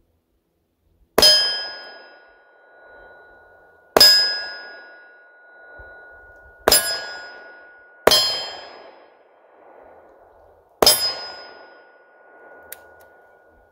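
Five shots from a Taurus 905 snub-nosed 9mm revolver, a few seconds apart. Each report trails off in an echo. Each is followed by the ring of a struck steel target, a steady tone that fades over a second or two.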